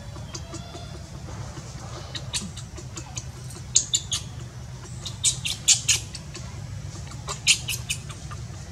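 A baby monkey squeaking: short, sharp high-pitched calls in three clusters, about four, two and six seconds apart, over a steady low hum.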